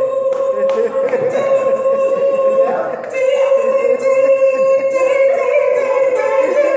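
An organ holding one long steady note, briefly broken about three seconds in, over a congregation shouting and singing, with scattered hand claps. This is the sustained organ note used to set off shouting and dancing in a Pentecostal service.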